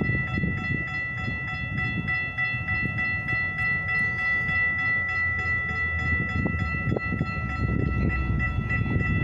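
Railroad grade-crossing warning bell ringing rapidly and steadily, over a low rumble.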